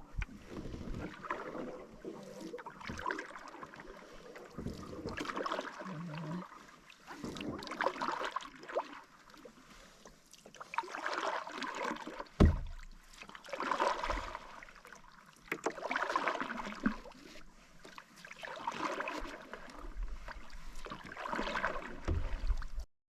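Canoe paddle strokes in lake water, a swish every two to three seconds, with one sharp knock about halfway through. The sound cuts off just before the end.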